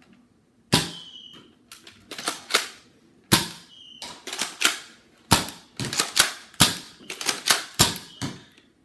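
Nerf Mega Cyclone-Shock blaster fired shot after shot until its drum is empty. Each shot is a sharp snap, with clacking from working the slide back between shots and a brief whistle after some shots.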